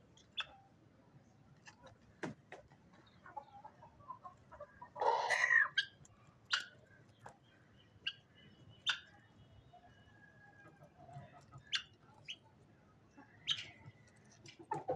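Aseel chickens clucking, with short sharp clicks scattered throughout and one louder, fuller call of under a second about five seconds in.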